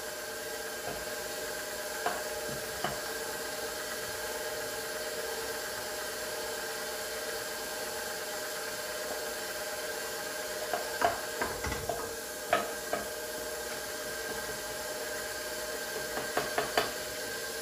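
Stand mixer running steadily on its lowest speed, its wire whisk beating a cake batter in a stainless steel bowl, a constant motor hum. A few light clicks and knocks come about two thirds of the way in and again near the end.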